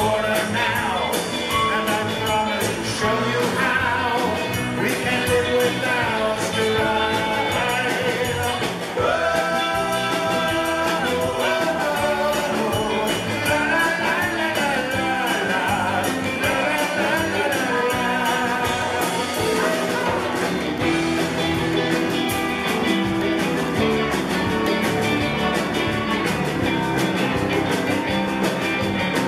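A live rock-blues band playing: electric guitars, keyboard, drum kit and congas, with a singer.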